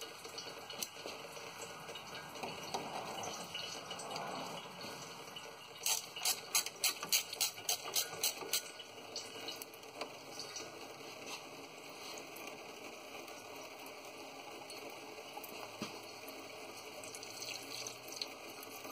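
Automatic transmission fluid running and dripping from the edge of a loosened transmission pan into a drain pan. A quick run of clicks and taps comes about six to eight and a half seconds in.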